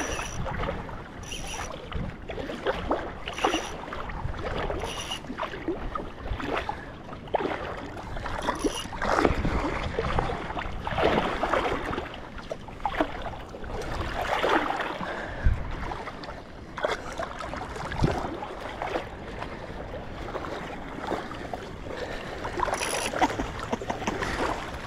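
Shallow seawater sloshing and lapping in irregular surges, close to the microphone.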